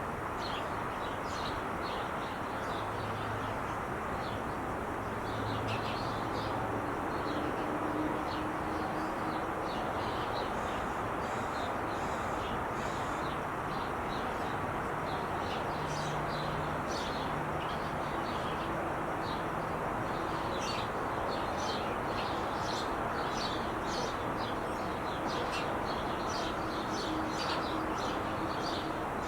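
Steady rush of traffic on the 5 freeway, with small birds chirping in quick short notes throughout.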